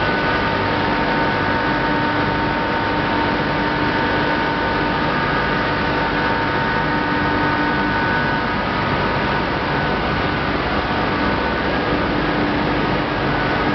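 Corn wet-milling plant machinery running: a steady, loud mechanical noise with several constant humming and whining tones.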